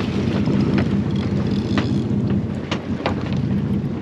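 Engines of a 31-foot Bertram sportfishing boat running at low speed as a steady low drone, with wind buffeting the microphone. A few short sharp ticks and taps sound over it.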